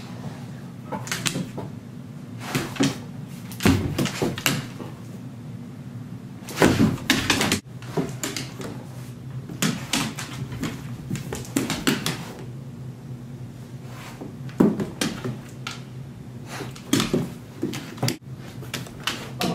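Two Great Danes moving about and playing on a hardwood floor: irregular clicks and knocks of claws and paws on the boards, with a few heavier thumps, over a steady low hum.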